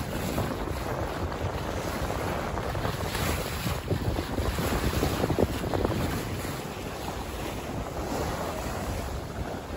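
Wind buffeting the microphone and the sea washing around a sailboat under way: a steady rushing noise that swells a little in the middle.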